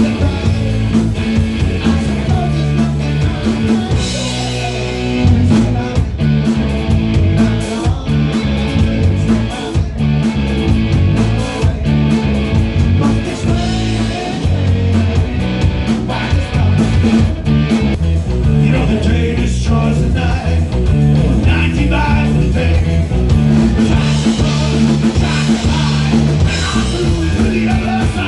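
Live rock band playing: electric guitar, bass guitar and drum kit, with a man singing lead vocals.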